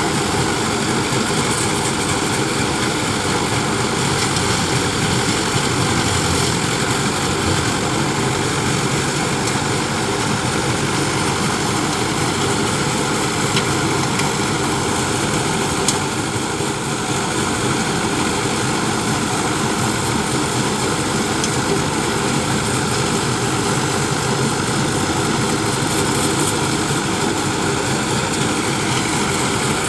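Combine harvester running steadily at work in the wheat, a continuous mechanical drone with no let-up.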